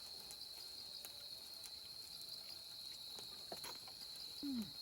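Crickets chirping in a steady, faint high trill. Near the end comes a brief low sound that falls in pitch.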